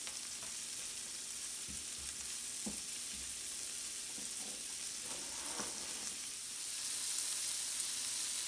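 Fiddleheads and sliced garlic sizzling in melted butter in a nonstick skillet: a steady frying hiss as they sauté over medium heat, left to brown at the edges. A few light knocks of the spatula and utensils come in the first few seconds, and the sizzle grows louder about two-thirds of the way through.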